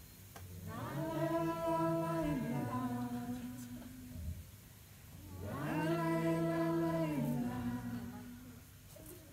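Unaccompanied voices singing two long held phrases in a bird-song number. Each phrase slides up in pitch at its start, holds steady, then steps down to a lower note and fades.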